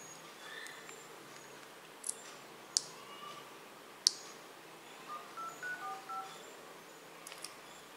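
Smartphone dialer keypad tones: about five short touch-tone beeps in quick succession as digits are tapped on the HTC Wildfire X's phone keypad. A few sharp clicks come before them, in the first half.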